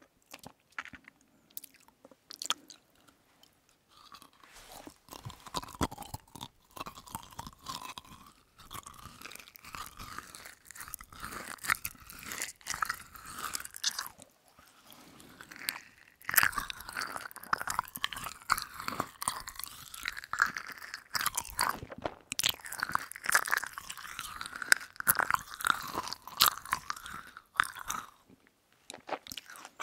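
Close-miked chewing of berry gummy candies coated in sugar beads: wet, sticky mouth sounds with many small crunches. The chewing starts about four seconds in, grows louder about halfway through, and stops near the end.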